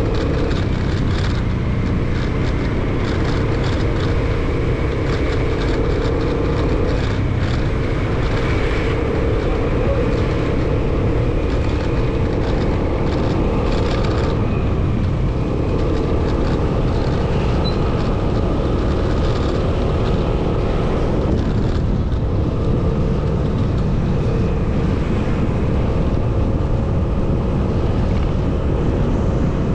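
Motorcycle engine running steadily while riding, with a dense low rumble of wind on the microphone. The engine note eases off briefly a few times, as when the throttle is closed or gears are changed.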